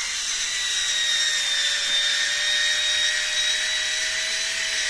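Parkside PAS 4 C4 4-volt cordless screwdriver whining steadily as it drives a 4x40 mm self-tapping screw into wood with no pilot hole.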